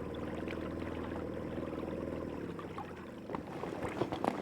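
Boat engine running steadily, its sound easing off about two seconds in, followed by several sharp knocks and clatters near the end.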